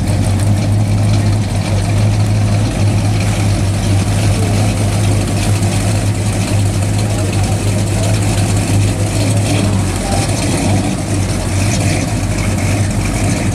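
Classic Dodge muscle car's V8 idling steadily through its dual exhaust, a deep even rumble that holds without revving.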